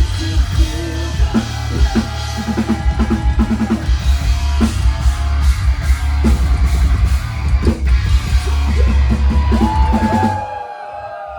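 Metalcore band playing live, with fast pounding drums, bass and heavy guitars. The band cuts off sharply about ten seconds in, leaving a held ringing tone and a few voices sliding in pitch.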